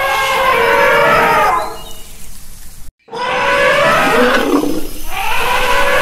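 Elephant trumpeting: long, loud calls that bend up and down in pitch. The calling fades about two seconds in, cuts out completely for a split second about three seconds in, then starts again.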